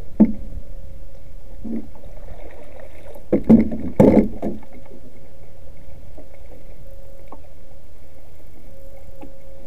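Wooden-sounding knocks of a paddle against a canoe, the loudest cluster about three and a half to four and a half seconds in as the paddle is laid down across the canoe, over a steady low rumble and a faint steady hum.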